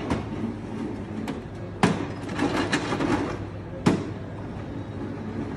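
Two sharp knocks about two seconds apart, with a few lighter clicks, over faint voices in the background.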